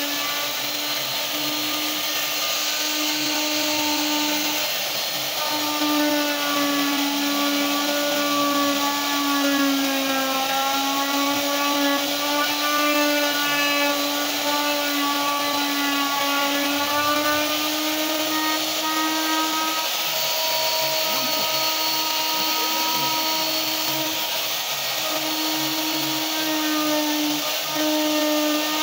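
Handheld plunge router running continuously as its bit cuts into a wooden door panel, a steady high whine. The whine sags slightly in pitch about ten seconds in, then recovers.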